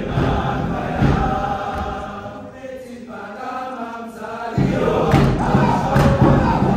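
A choir singing together in chant-like style, with thumps in the beat. The low voices drop away for a moment in the middle, then the full choir comes back in loudly about four and a half seconds in.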